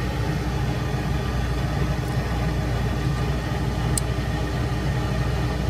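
Steady low hum of running machine-shop equipment, with a faint tick about four seconds in.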